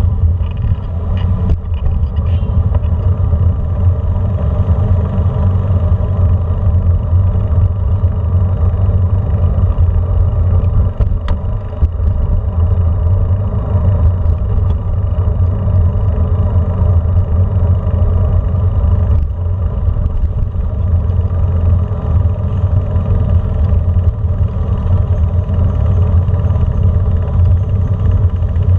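Steady low rumble of riding slowly over brick-paved streets, with vehicle engines running in the traffic close ahead.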